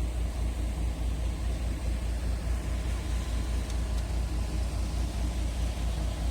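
Steady low rumble of a moving vehicle, fluttering unevenly in level.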